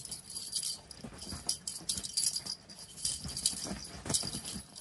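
Quick, irregular jingling and rattling, with rustling of blankets, as a cat leaps and bats at a toy.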